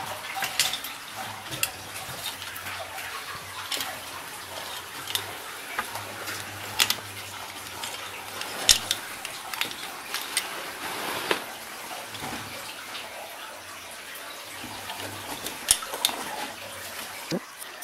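Scuffs and scattered knocks of cavers crawling over rock and mud, their gear now and then clicking against stone, over a steady hiss.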